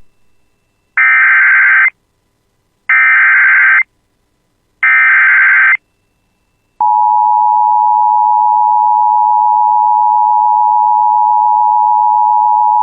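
Emergency Alert System SAME header from NOAA Weather Radio: three one-second bursts of buzzy digital data tones, about a second apart. About seven seconds in, the steady single-pitch 1050 Hz weather radio warning alarm tone starts and holds.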